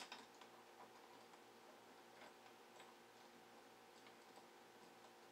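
Near silence with a few faint, scattered ticks and clicks, the sharpest right at the start: a small hand tool and screws being worked while a stepper motor is fastened to its printed mount.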